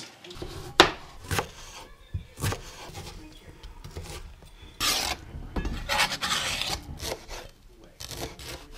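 Chef's knife chopping on a plastic cutting board, dicing tomato and then chopping cilantro. Irregular sharp knocks of the blade on the board, with a few longer scraping rubs in between.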